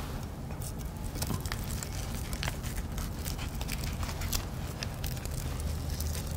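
Crisp crackling and small clicks of dry nori seaweed being handled and wrapped around rice into temaki hand rolls, over a low steady hum.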